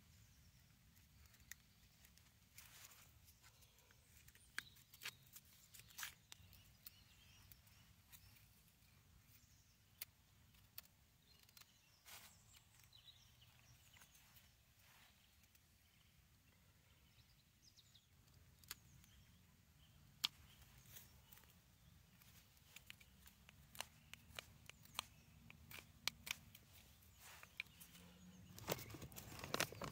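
Near silence: faint outdoor ambience with scattered small ticks and clicks, growing busier toward the end.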